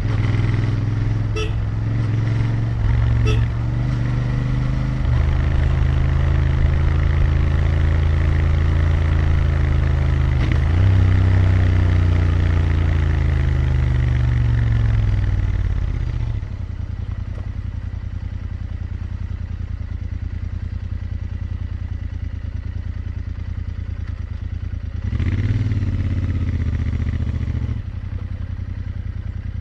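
Royal Enfield Interceptor 650's parallel-twin engine running under load while riding, its pitch rising and falling through gear changes. About sixteen seconds in it drops to a quieter steady idle, with a short blip of the throttle near the end.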